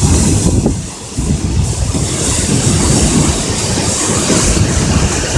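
Sipiso-piso waterfall rushing: a loud, steady roar of falling water, dipping briefly about a second in.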